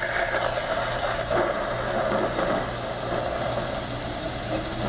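Homedics SoundSpa sleep-sound machine playing its recorded thunder track through its small built-in speaker: a steady wash of noise.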